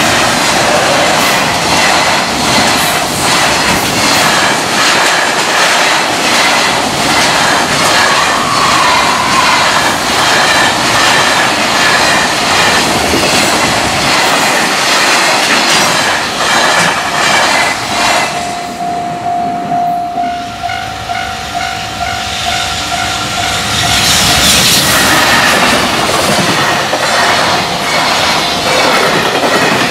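Freight trains passing a level crossing at speed at close range: a dense rush with the clickety-clack of wagon wheels over rail joints. In a lull about two-thirds of the way through, the crossing's warning bell rings steadily. At about 24 s the next freight train arrives and the rush swells again.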